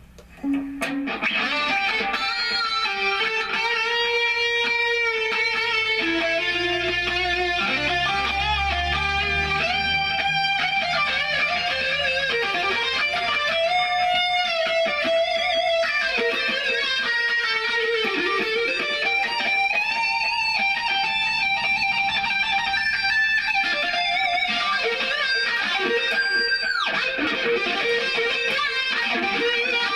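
Ibanez Jem 70V electric guitar played through a Line 6 POD HD500 into a Laney combo, on a clean-to-driven lead tone with Tube Screamer, delay, spring reverb and chorus. It plays melodic lines of held, bending notes, starting about half a second in, and one note drops sharply in pitch near the end.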